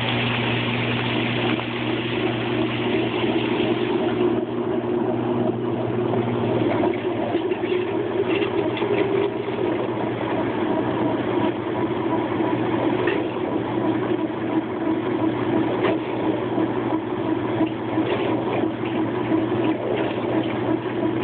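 Whirlpool top-loading washing machine running its spin-rinse: a steady motor hum under the drum spinning, with water spraying in the first few seconds before the hiss drops off.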